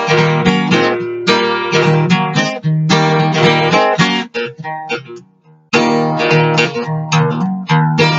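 Acoustic guitar music, breaking off briefly about five seconds in and then starting again.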